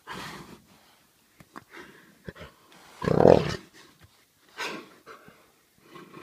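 Two jaguars, one spotted and one black, snarling and growling in short bursts during a play fight. The loudest bursts come right at the start and about three seconds in, with a few sharp clicks between them.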